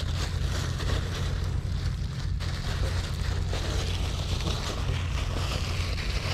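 Plastic bag rustling as a hand scoops crumbly ground bait out of it, over a steady low rumble.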